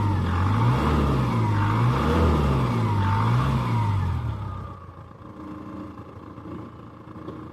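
Mahindra Thar CRDe's four-cylinder turbo-diesel engine, stock exhaust, revved up and down repeatedly, about four blips in a steady rhythm. It then drops back to a quieter, steady idle a little over halfway through.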